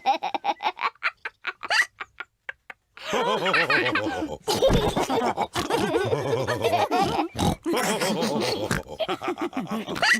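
Cartoon pig characters laughing with oinks and snorts. A quick run of short snorting laughs comes first, then a pause of about a second, then several voices laughing together.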